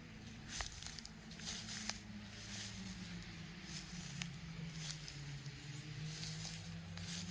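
Footsteps walking at a steady pace, about one step a second, over a low steady hum.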